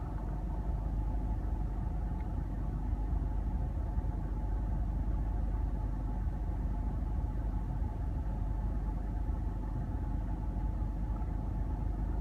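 A 2012 Ford F-150's 3.5-litre twin-turbo EcoBoost V6 idling shortly after a cold start, a steady low rumble. The owner is checking it for a slight rough idle in which the rpm flickers up and down.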